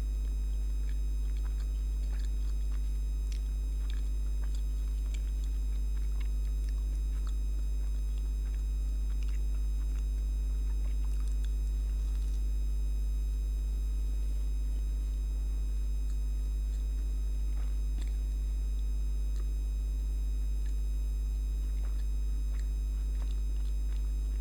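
Steady electrical buzz from a light fixture, a constant low hum with overtones that does not change. Faint scattered ticks of chewing sit over it.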